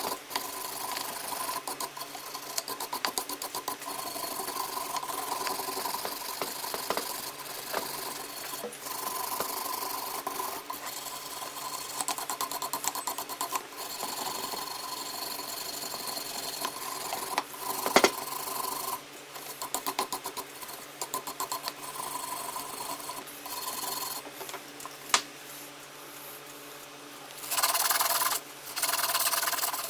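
A small electric tool runs steadily while grinding or rubbing against the metal of a pair of cooking scissors during their cleaning and restoration. There is a sharp click about 18 seconds in and another about 25 seconds in, and the sound gets louder and rougher near the end.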